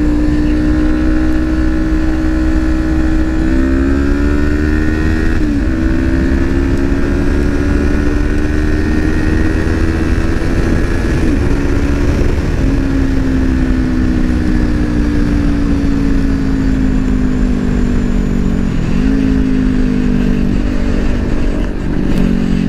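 Kawasaki Ninja 400 parallel-twin engine running at road speed. Its note climbs slowly and drops sharply a few times, over a heavy low wind rumble on the helmet microphone.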